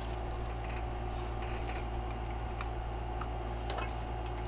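A few faint clicks and taps from handling a plastic-and-metal solar flood light, over a steady low hum.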